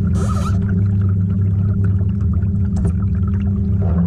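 Steady low hum of a small trolling motor pushing the kayak, with water splashing and trickling along the hull. A short hiss of spray at the very start.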